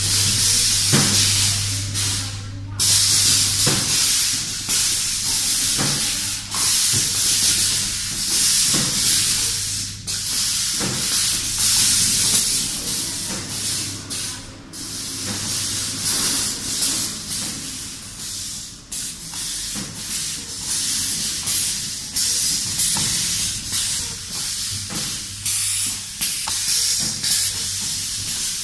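Workshop of small pneumatic press machines: a near-constant hiss of compressed air that breaks off briefly every few seconds, over a steady low electrical hum and a few light knocks.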